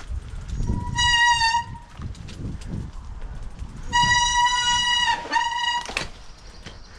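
Mountain-bike brakes squealing under braking on a muddy descent: an unbearable, steady high squeal, briefly about a second in and again for about two seconds from four seconds in, over the low rumble of tyres on the dirt trail. The brakes are wet and muddy from the trail's deep puddles.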